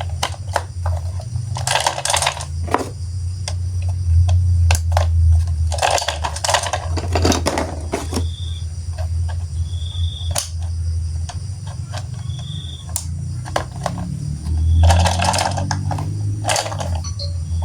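Plastic toy train pieces clicking and rattling as they are handled, with several louder rustles, over a steady low hum. A short high tone sounds four times.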